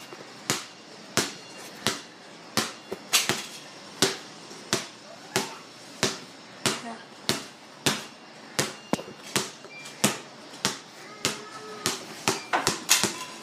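Basketball being dribbled, bouncing steadily about one and a half times a second and a little quicker near the end.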